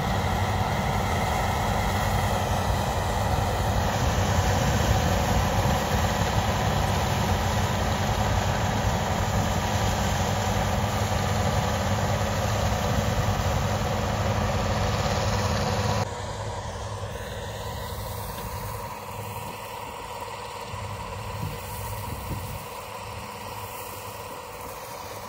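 Bizon Rekord combine harvester at work cutting barley, its diesel engine and threshing machinery running steadily. About two-thirds of the way through the sound cuts abruptly to a quieter, steady engine hum.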